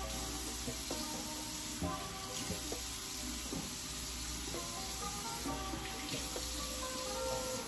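Background music over the steady hiss of running tap water at a sink.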